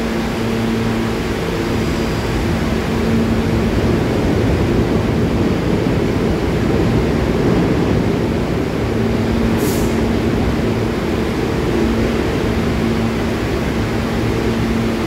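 R68 subway car standing at the platform with its onboard equipment running: a steady mechanical hum and rush of air. A single short, sharp hiss of air release comes about ten seconds in.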